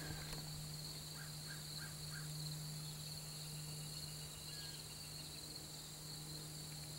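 Quiet outdoor ambience: a steady high insect trill and a low steady hum, with four faint short chirps about a second in.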